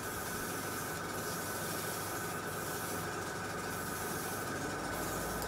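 Airbrush hissing steadily as it sprays thinned enamel paint at about 15 psi, with a faint steady high tone underneath.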